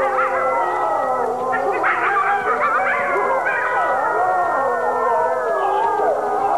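A pack of wolves howling in chorus: several voices at different pitches overlapping, some held steady and some gliding up and down.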